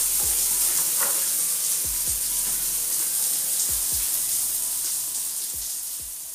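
Water pouring from a homemade PVC rain-style shower head onto a tiled floor, a steady hiss of falling streams that fades out near the end.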